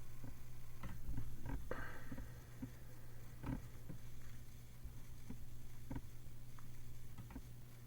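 Occasional faint computer mouse clicks over a steady low electrical hum.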